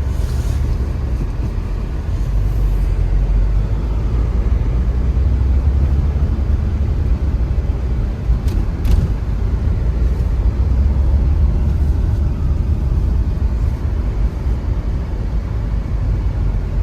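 Steady low rumble of a Renault Megane 2 driving, heard from inside the cabin, with two brief clicks about eight and a half seconds in.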